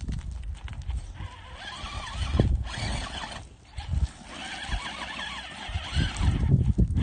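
Electric motor and gearbox whine of an RC rock crawler creeping over rocks, rising and falling in two spells with a short break in the middle, over low knocks and rumble.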